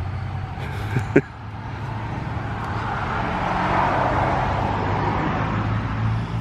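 A motor vehicle passing, its rush of road noise building to a peak midway and easing off, over a steady low engine hum.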